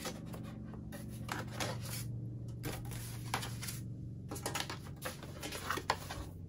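Framed plastic panels of a flat-pack mini greenhouse being handled and shuffled against each other: irregular clicks, taps and light rattles.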